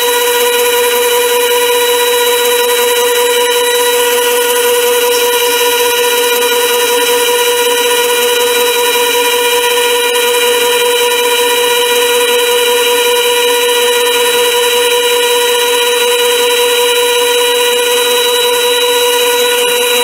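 Chinese variable-speed mini lathe running steadily at speed with a constant high whine from its motor and gearing while a boring bar takes a light finishing cut. It is switched off at the very end and starts to wind down.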